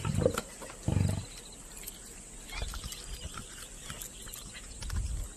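A lioness growls low in short bursts while feeding on a carcass: two growls at the start and another near the end. Faint crackles of tearing and chewing meat and hide run between them.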